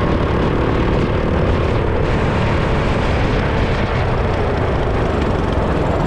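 Go-kart engine running hard, its pitch dropping in the middle and then climbing again, over a steady rushing rumble.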